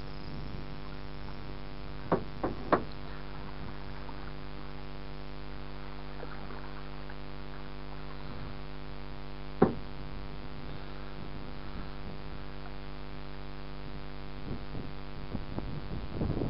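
Steady electric hum with several even overtones, broken by three sharp knocks about two seconds in and one louder knock near the ten-second mark; water splashing rises near the end.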